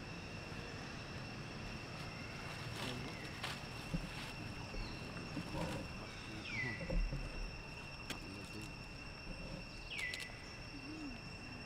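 Steady high-pitched insect drone holding two even tones, over scattered clicks and rustles in dry leaf litter. Two short downward-sliding chirps come about six and ten seconds in.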